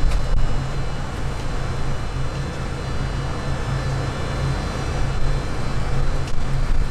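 A steady low rumble and hum, even throughout, with a single sharp click just after the start.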